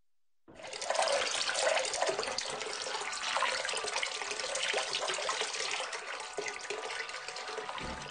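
Water running steadily from a sink tap onto cupped hands. It starts suddenly about half a second in, after silence.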